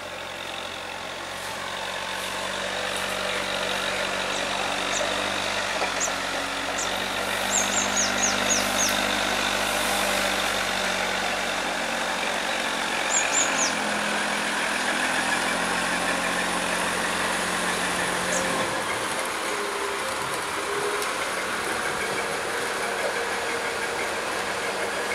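Canadian-built Sri Lanka Railways M4 class diesel-electric locomotive running slowly toward the listener, its engine drone growing louder over the first few seconds. The engine note shifts around 12 to 14 seconds in and its low drone drops away about 18 seconds in. A bird chirps in quick falling runs about 7 to 9 seconds in and again around 13 seconds.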